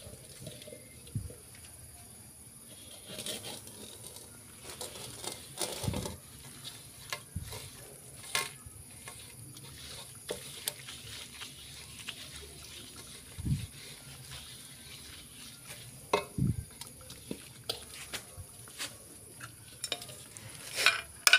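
A burnt, blackened metal wok being scrubbed out by hand: rubbing and scraping against the metal, with irregular clinks and a few dull knocks of the pan.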